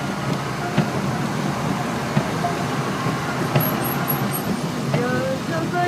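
Steady rain with road traffic on wet streets, a continuous hiss and hum with a few sharp taps scattered through it.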